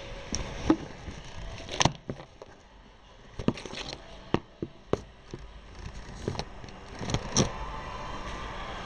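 Camera handling noise: about ten sharp, irregular clicks and knocks as the camera is moved and set, over a steady hiss.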